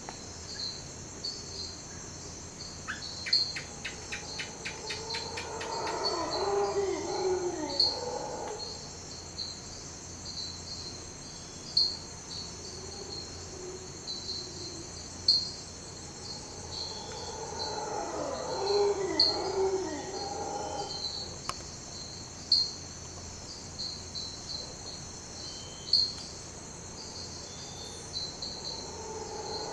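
Mantled howler monkeys giving eerie howls in two bouts of about three to four seconds each, a third starting near the end, over a steady chorus of chirping insects. A brief fast clicking series comes about three seconds in.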